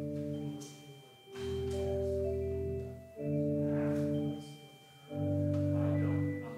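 Organ playing slow sustained chords, each held for a second or two, with short breaks between them.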